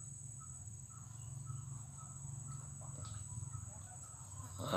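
Steady high-pitched insect drone of crickets, with faint short pips repeating about twice a second and a low hum underneath. A brief louder noise comes near the end.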